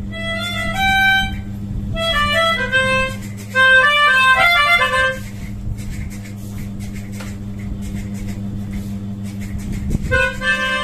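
A child playing a pianika (melodica) in quick runs of uneven notes over the first five seconds, pausing, then starting again near the end, over a steady low hum.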